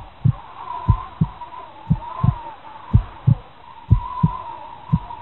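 Heartbeat sound effect: paired low thumps, lub-dub, about once a second, over a faint wavering high tone.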